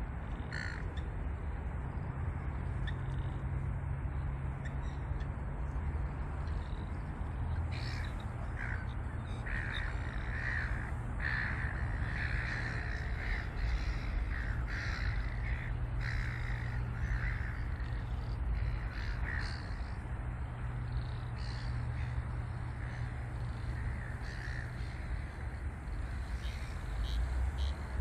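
Ravens cawing, a long run of short harsh calls repeated through the middle of the stretch, over a steady low hum.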